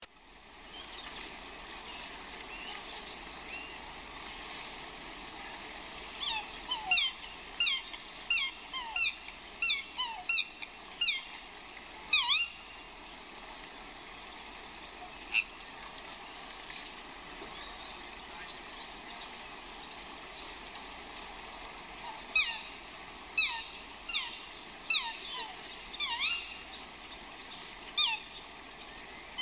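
Swans calling: sharp, high squealing calls, each falling quickly in pitch. They come in a rapid run of one to two a second, then a few single calls, then a second run near the end, over a steady hiss of rain.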